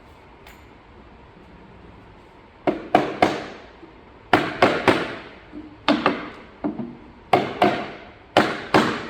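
Rubber mallet knocking phenolic plywood shelf tenons into the racking's end panel. Quiet for the first couple of seconds, then about fifteen sharp knocks in quick groups of two or three.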